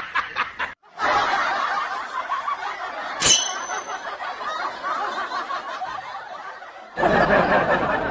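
People laughing, in short snickering bursts that break off about a second in, followed by a crowd's overlapping laughter and chatter. A single sharp click comes about three seconds in.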